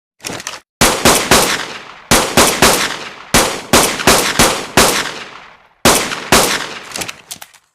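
Pistol gunshot sound effect: rapid volleys of three or four shots at a time, each shot with an echoing tail, with a few lighter clicks near the start and end.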